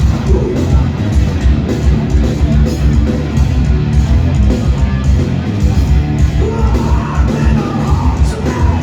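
Live rock band playing loud and heavy, with a pounding drum beat, heard from within a concert hall's audience.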